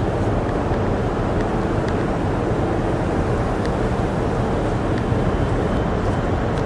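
Steady low rumble of wind buffeting the microphone outdoors, with no single sound standing out.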